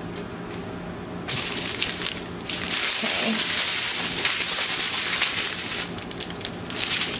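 Thin clear plastic bags of diamond painting drills crinkling and rustling as they are picked up and handled, loudest from about a second in until near the end.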